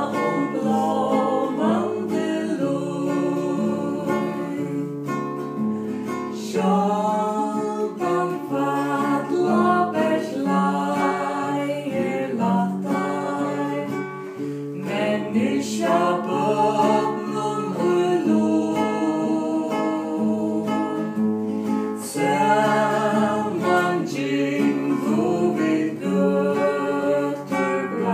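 A woman and a man singing a song together, accompanied by a strummed nylon-string classical guitar.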